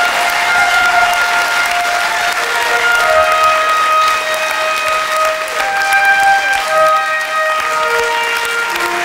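Audience applauding over walk-on music: a steady clapping haze with long held notes that step from one pitch to another every second or so.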